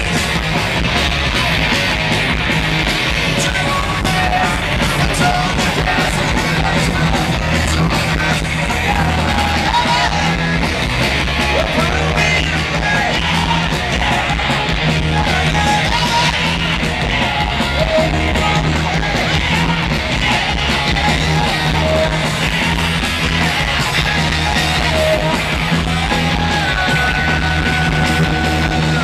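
Live punk rock band playing loudly through a concert PA, recorded from within the crowd, with yelled singing over the band.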